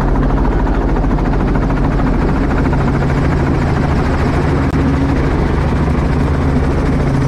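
Robinson R44 Clipper II helicopter heard from inside the cabin: a steady, loud drone of the main rotor and six-cylinder piston engine as it comes in low to land on a sandbank.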